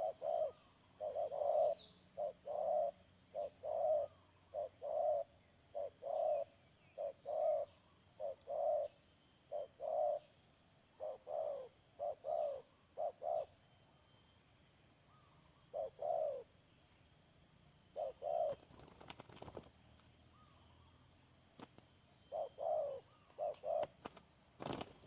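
Spotted doves cooing in repeated short phrases of a few notes each, with pauses of a couple of seconds in the latter half. A sharp click sounds near the end.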